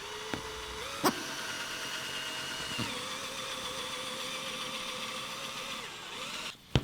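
Power drill running steadily as it drives a screw, its motor pitch shifting slightly a couple of times, with a sharp click about a second in. The motor stops near the end, followed by a sharp knock.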